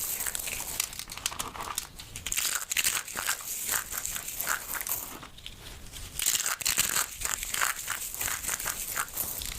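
Soap crunching and crackling as it is broken up, a dense run of crisp crumbly crackles with a brief lull about five seconds in.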